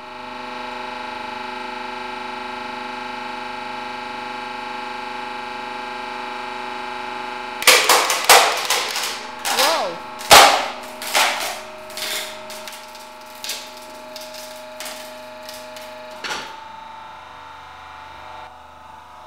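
Hydraulic press pump running with a steady whine as the ram bears down on a paulownia wood board. From about eight seconds in, the board gives way in a run of sharp cracks and snaps, loudest about ten seconds in, as it splits under a low load. The pump keeps running underneath.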